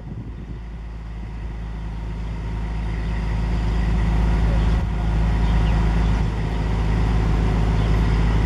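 A large engine running steadily, growing louder over the first few seconds and then holding.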